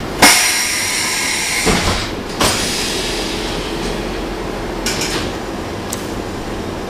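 Stockholm A31 tram car 333 running, heard from inside the passenger saloon as a steady rumble. Sharp knocks come just after the start and twice more around two seconds in, with short high squeals or hisses near five and six seconds.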